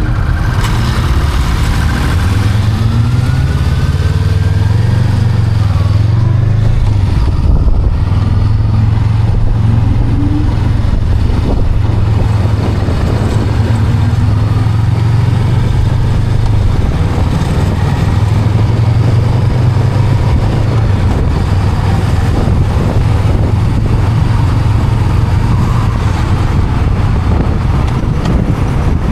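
Honda Rebel 500's parallel-twin engine running while riding, its pitch shifting up and down with throttle and gear changes, under steady wind noise.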